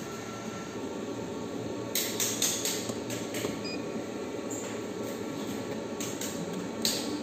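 Steady fan-like hum in a small room, with a cluster of brief clicks and rustles about two seconds in and another near the end.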